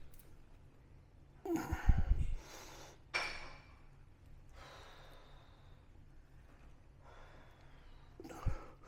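Three heavy, sigh-like exhales from a person working out, the first with deep thumps under it and the last with a single low thump near the end.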